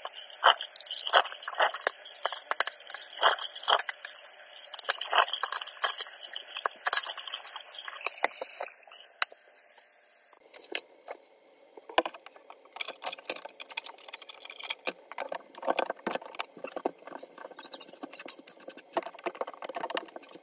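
Water splashing and dripping in a kitchen drain during high-pressure drain cleaning. A steady hiss under the splashes cuts off about ten seconds in; irregular splashing and dripping carry on after it.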